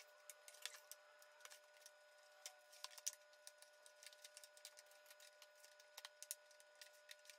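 Near silence: room tone with faint, scattered ticks and clicks.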